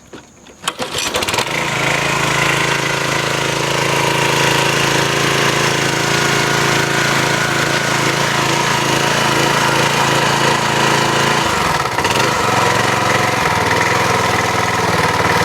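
The 6.75 hp Briggs & Stratton single-cylinder engine on a Troy-Bilt pressure washer starts about a second in after a few clicks, then runs steadily. About twelve seconds in, its note dips and wavers briefly before settling again.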